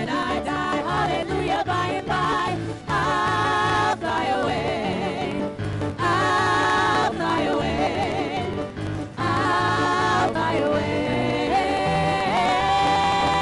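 Women's vocal group singing a gospel song together over instrumental accompaniment, with long held notes that waver.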